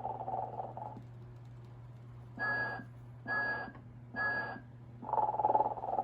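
A Telco animated snoring Santa figure ends one rattly snore. It then gives three short whistles about a second apart and starts another snore near the end, over a steady low hum.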